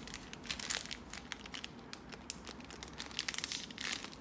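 Plastic bag crinkling in irregular crackles as it is pressed flat to push the air out.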